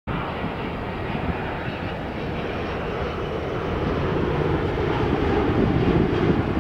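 Engine noise of an airliner flying near the airport: a steady, broad rumble that grows slowly louder.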